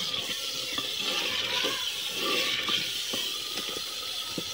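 Potato-and-cauliflower curry cooking in a clay pot over a wood fire, giving a steady hiss, while a wooden spoon stirs through it with a few light clicks and scrapes against the pot.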